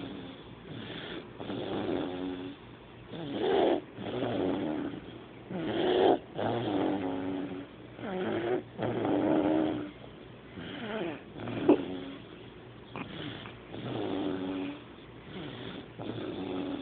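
Snoring: a pitched, noisy sound on each breath, repeating every one to two seconds and swelling louder on some breaths, with one brief sharp snort about two-thirds of the way through.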